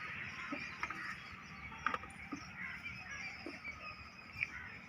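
Faint outdoor ambience with a few soft, short clicks scattered through it.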